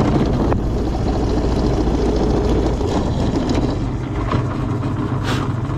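Drill press running with a step drill bit cutting into the steel backing plate of a brake pad, enlarging its pin hole: a steady motor hum under a rough grinding of the cut.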